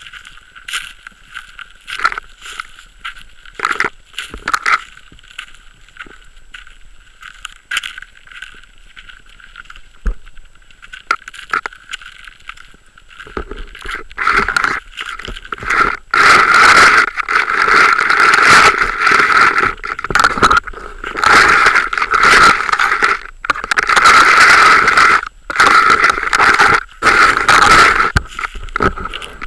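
Handling noise from a handheld camera being carried: scraping and rubbing on the microphone, scattered at first, then loud and almost continuous from about halfway, with short breaks.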